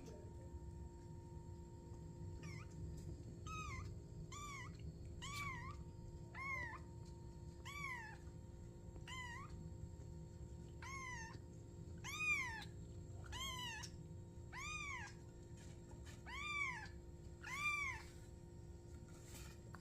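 A kitten meowing over and over, high-pitched short rising-and-falling cries about once a second, growing louder toward the end.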